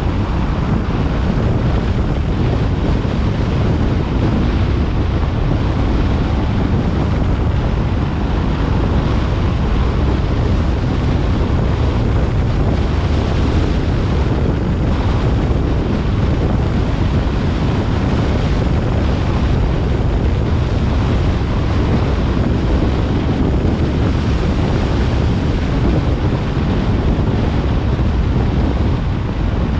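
Steady wind noise buffeting the microphone over the low rumble of a moving car's road and engine noise, with no change in level throughout.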